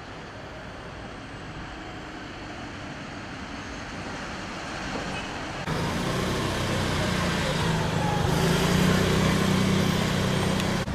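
Street traffic noise. Just over halfway through it steps up suddenly and gets louder, with a steady low engine hum underneath.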